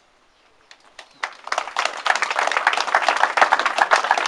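A small crowd applauding: a few scattered claps about a second in, quickly building into dense, steady applause.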